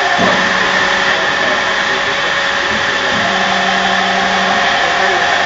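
Multi-spindle drilling machine with hydraulic slides running: a steady machine hum and whine. A low tone drops in pitch just after the start, holds, and fades out about a second before the end.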